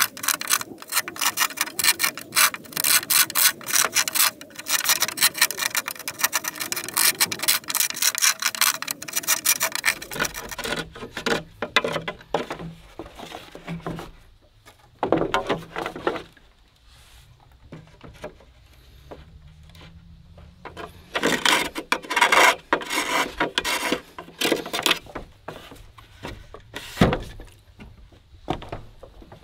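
Large knife carving and scraping out a hole in a green bamboo pole: quick repeated cutting strokes, a quieter spell with a few strokes, then another dense run of strokes. A single sharp knock near the end as a bamboo post is seated in the hole.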